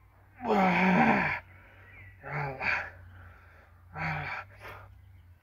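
A man's wordless vocal strain while he forces his hands to tear a pack of playing cards: one long effortful cry about half a second in, then two shorter bursts.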